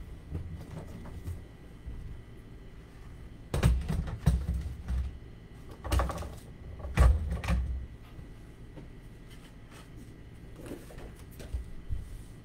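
Objects being handled on a desk: two clusters of knocks, thuds and rustling, a few seconds in and again about halfway through, with a few fainter clicks later.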